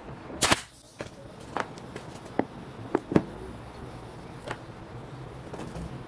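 A pneumatic nailer fires once about half a second in with a sharp crack. It is followed by a string of light wooden clicks and knocks as plywood pieces are handled, the loudest a little after three seconds in.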